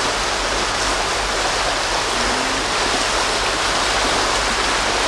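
Steady rush of fast-flowing water, like a stream or small waterfall, with an even noise and no breaks.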